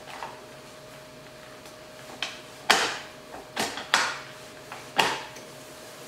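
Clunks and rattles from an inversion table's frame and fittings as someone gets onto it: a few separate sharp knocks, the loudest about halfway through and another near the end.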